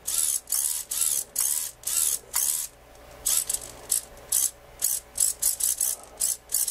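The pan and tilt micro servos of a small 3D-printed camera gimbal whirring in short bursts, about two a second, each a brief geared buzz as the gimbal is steered to a new position.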